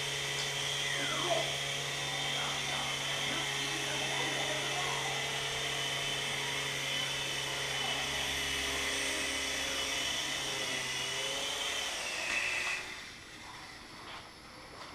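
Small electric motor and rotors of a 20 cm three-channel mini RC helicopter whining steadily at a high pitch, stopping near the end.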